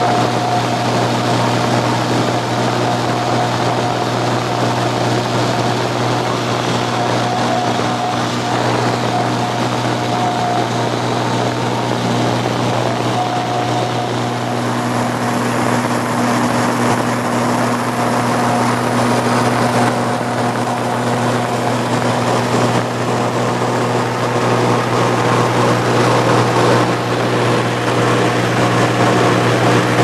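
Steady drone of a single-engine light aircraft's engine and propeller heard from inside the cabin in flight: a constant low hum with an even wash of air noise.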